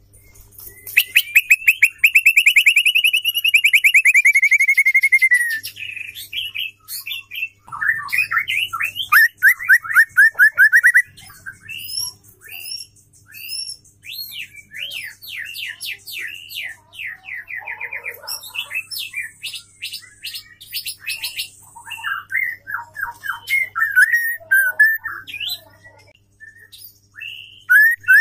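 Female white-rumped shama singing a varied song: a long rapid trill about a second in that falls in pitch as it ends, then runs of quick repeated whistled notes and short, changing phrases.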